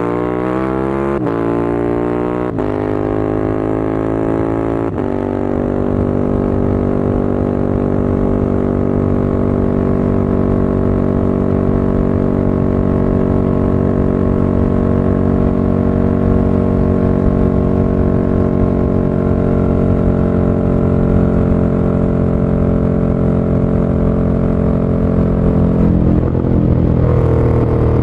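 2016 KTM 1290 Super Duke R's V-twin, through an Akrapovic titanium slip-on and decat pipe, accelerating hard through three quick clutchless upshifts on its quickshifter in the first five seconds, each a brief cut in the climbing engine note. Then it holds a steady high-revving drone at speed.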